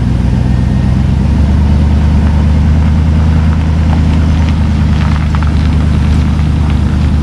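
A vehicle engine running steadily at an even pitch, growing a little stronger about a second and a half in, with a few light clicks and knocks partway through.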